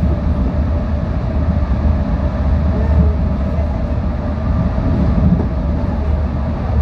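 Busan Metro Line 4 rubber-tyred light-metro train running through a tunnel at steady speed. A constant low rumble from the concrete guideway carries a steady hum through it.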